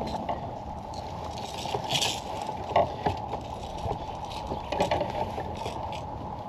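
Water lapping against a kayak's hull with a steady wash, broken by scattered small knocks and a brief rustle about two seconds in, as a fish is handled aboard.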